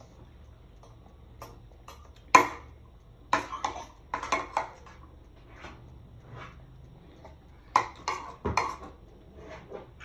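A metal spoon scraping and clinking against a plate of rice in a few short bursts, the sharpest about two seconds in and another group near the end.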